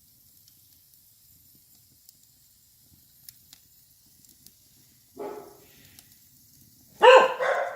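Wood fire in a fireplace crackling faintly, with a light hiss and sparse small pops. About five seconds in comes a short low whine or growl, and near the end a dog barks loudly once.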